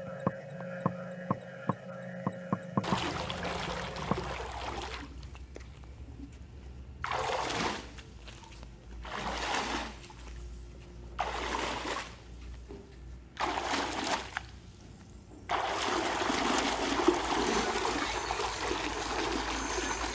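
Water pouring and splashing, coming in several short gushes and then flowing steadily. It is preceded by a few seconds of steady hum with regular sharp clicks.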